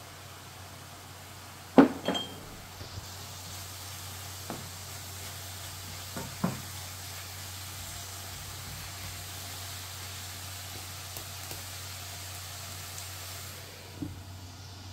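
Wet grated vegetables sizzling gently in a stone-coated frying pan while a wooden spatula stirs them, knocking against the pan now and then; the loudest knocks come about two seconds in, one with a short clinking ring. Near the end the pan's glass lid is set down with a clink.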